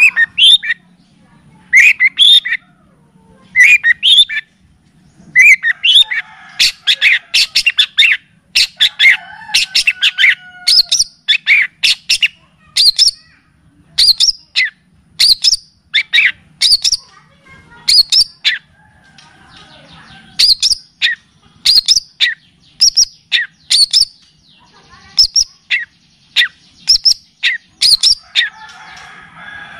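Recorded songbird song played as masteran tutor audio for a long-tailed shrike: loud, sharp chipping notes, singly and in quick runs, over a faint steady low hum.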